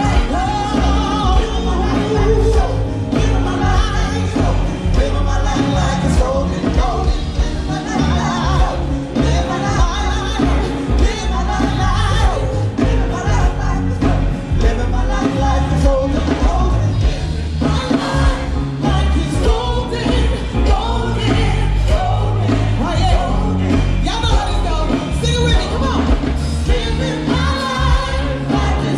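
Band music with a singer, over a strong, steady bass.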